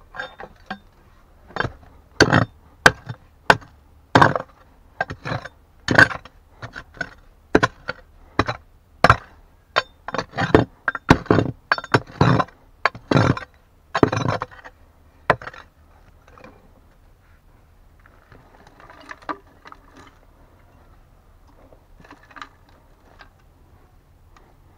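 A hand pick striking stones and packed earth in a dig hole: about twenty sharp, irregular blows over the first fifteen seconds, then softer scraping and rustling of soil and rock.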